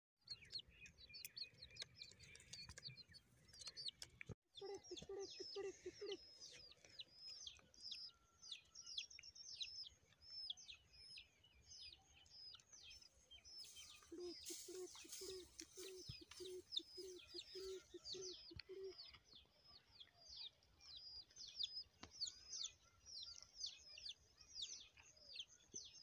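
Small birds chirping faintly, a quick steady series of sharp, high, falling chirps. Two runs of low, evenly spaced notes join in, one early and one in the middle. A short rustling burst comes about halfway through.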